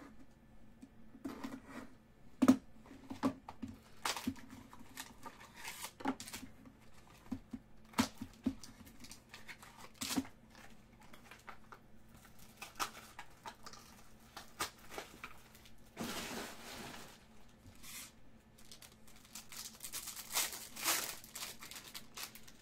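A trading card pack's wrapper being torn open and its plastic wrap crinkled, with cards handled and set down: scattered sharp crinkles and taps, a longer rustle about sixteen seconds in and another crinkling stretch near twenty-one seconds.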